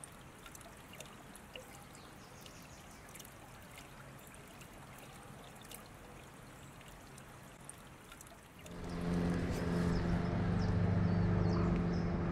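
Small creek trickling faintly over stones. About nine seconds in, a much louder steady low hum begins.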